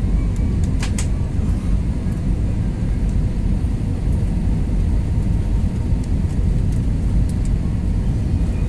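Steady low rumble of a jet airliner's engines and airflow, heard from inside the passenger cabin during the descent to land. A couple of faint clicks come about a second in.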